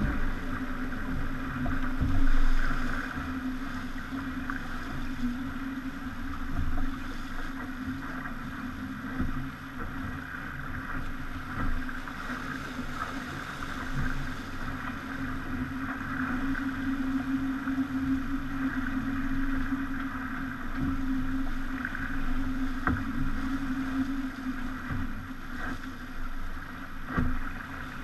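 Sailing yacht under way at sea: a steady drone over the rush of water, with scattered knocks and thumps, the loudest about two seconds in.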